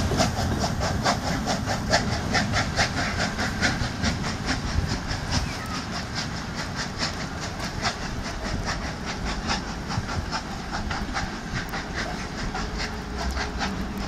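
Steam locomotive pulling a passenger train out of a station: steady exhaust chuffs, about three a second, over hissing steam, slowly fading as the train draws away.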